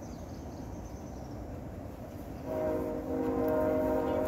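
A horn sounds a long, steady chord of several notes, starting about two and a half seconds in and still holding at the end, over a low rumble.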